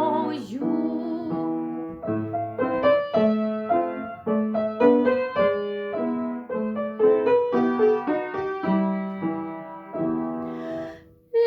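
Piano playing a gentle accompaniment interlude between two verses of a song, a steady run of chords and melody notes, trailing off near the end.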